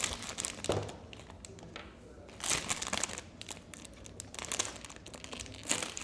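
Plastic blind-box wrapper crinkling in several short bursts as it is handled and opened.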